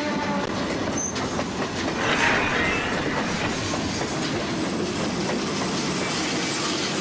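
A train running along the tracks, its wheels clattering on the rails, with a brief louder, brighter burst about two seconds in.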